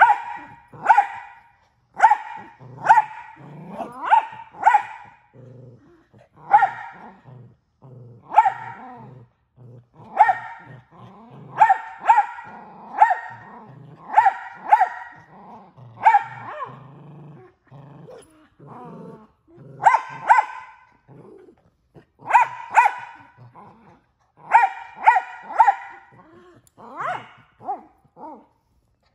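Mini Australian Shepherd barking loudly and repeatedly, about one bark a second, in clusters of several quick barks with brief pauses. Low growling runs between the barks as it tugs on a toy.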